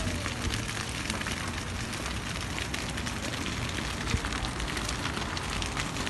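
Dry grass and brush fire burning, a dense steady crackle of many small pops over a low rumble, with one sharper pop about four seconds in.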